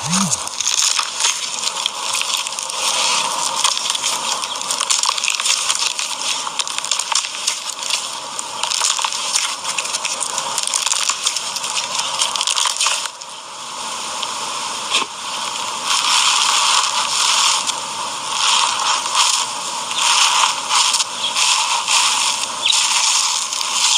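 Crunchy slime being squeezed and worked by hand: a dense, wet crackling and popping, with a briefly quieter stretch about halfway through.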